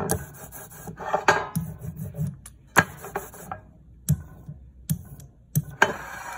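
An inked brayer rolling over a relief printing block and an inking tray, a sticky rasping sound in several strokes, with a few sharp knocks as the brayer and tray are handled on the table.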